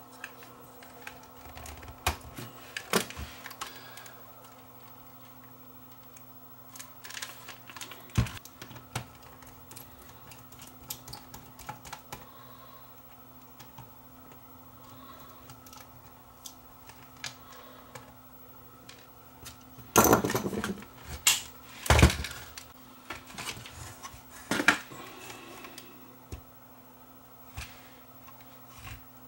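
Scattered small clicks, taps and plastic rattles as the casing of a Sony Hi8 camcorder is taken apart with a small screwdriver. Louder clatter comes about twenty seconds in, with a sharp knock shortly after, over a faint steady hum.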